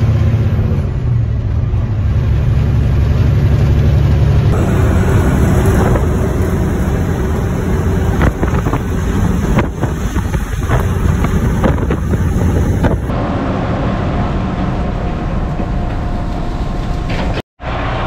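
Loaded grain semi truck driving down the road, heard from the cab: steady low engine and road rumble with wind noise. The sound changes abruptly twice as the shot changes, and drops out for a moment near the end.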